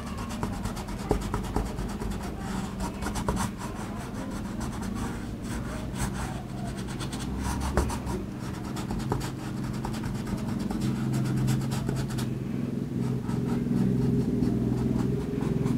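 Paintbrush rubbing and scratching across a canvas in short, irregular strokes as acrylic paint is worked in, over a steady low hum.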